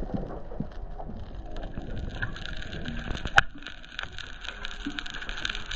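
Sound picked up by a camera held underwater: a muffled wash of water with a steady crackle of fine clicks and a faint hum, broken by one sharp knock about three and a half seconds in.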